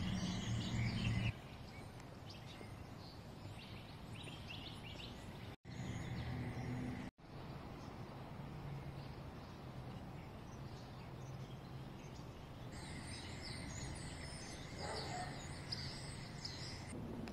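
Outdoor neighbourhood ambience: small birds chirping over a low, steady background rumble, the chirping busiest near the end. The sound drops out briefly twice where one clip cuts to the next.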